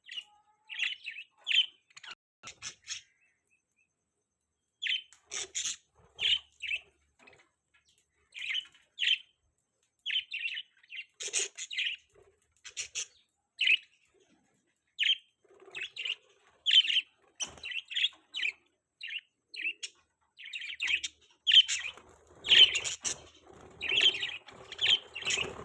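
Budgerigars chirping: short, sharp chirps in irregular runs with brief pauses, growing busier toward the end.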